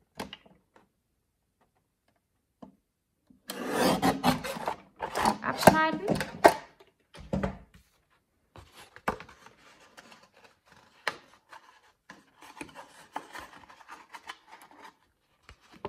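Lever paper cutter slicing through a sheet of patterned craft paper: a loud rasping scrape with some squeal, lasting about three seconds, starting a few seconds in. Quieter paper rustling and light taps follow as the cut paper is handled and folded.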